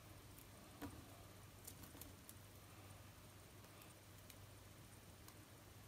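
Near silence: a low steady hum with a few faint ticks from a small paper banner and foam adhesive squares being handled, the clearest about a second in.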